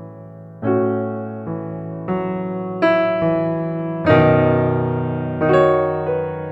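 Background piano music: soft chords and notes struck one after another, each ringing out and fading.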